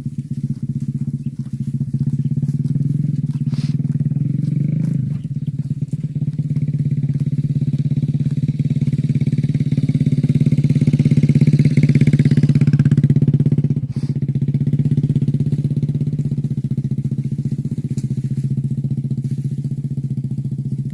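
A small engine running steadily with a rapid even pulse, getting somewhat louder for a few seconds past the middle.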